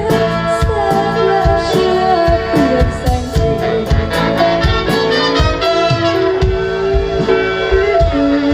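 Live pop/jazz band playing an instrumental passage: a held, gliding lead melody over bass and a steady drum beat.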